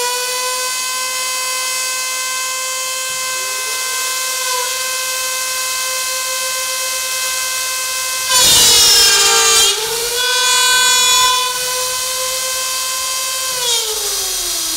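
High-speed router motor of a uPVC slot-milling machine running with a steady high whine. About eight seconds in, the cutter bites into the uPVC profile for about a second and a half, louder and rougher with the pitch dipping under load, then cuts again more lightly for another second or so. Near the end the motor is switched off and its whine slides down as it spins down.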